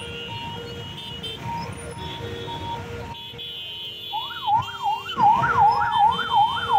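Police vehicle siren wailing fast up and down, starting about four seconds in over the steady noise of jammed traffic.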